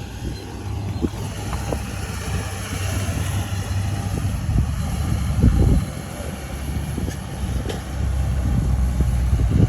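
Diesel engine of a crawler bulldozer running with a steady low rumble, swelling louder about halfway through and again near the end, with a few short knocks over it.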